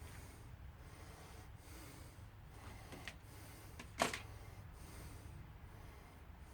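Handling of brass cartridge cases and reloading tools: a few faint clicks and one sharper click about four seconds in, over a low steady hum.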